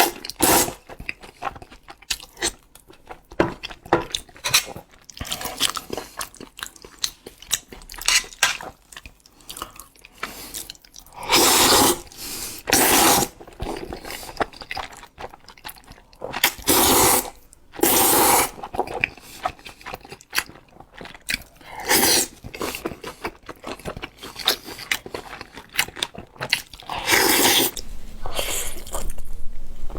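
Close-miked eating of spicy instant fire noodles: wet chewing and mouth clicks throughout, broken by several loud slurps about a second long each.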